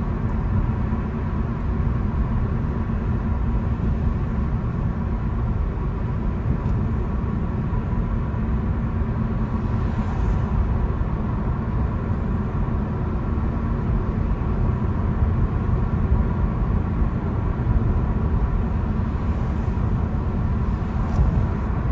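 Steady road and engine noise of a moving car, heard from inside the cabin, with a low rumble and no distinct events.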